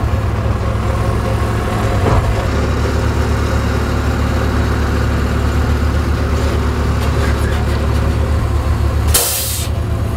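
Heavy engines of a Gradall telescoping-boom excavator and a dump truck running with a steady low drone while the excavator works its boom and bucket. About nine seconds in comes a short, sharp hiss of air.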